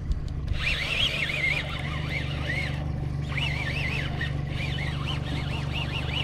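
Boat outboard motor running steadily at trolling speed, with a high, wavering whine coming and going over it.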